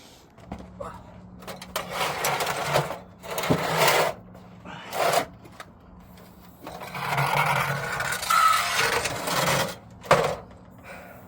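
Impact wrench hammering on an exhaust header flange bolt in several bursts, over a steady low hum.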